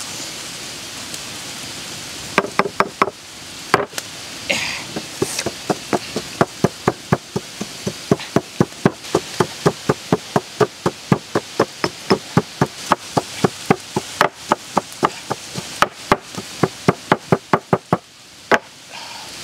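Pestle pounding red chilies and garlic in a stone mortar: a long run of sharp, even knocks, about two to three a second, with a short pause near the start.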